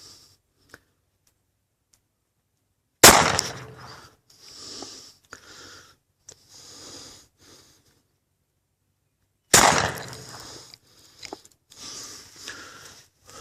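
Two pistol shots about six and a half seconds apart from a Kahr CM compact .40 S&W handgun firing SinterFire frangible rounds, each a sharp crack that dies away.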